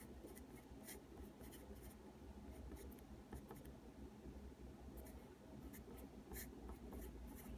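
Faint scratching of writing by hand, short strokes in several small runs with pauses between.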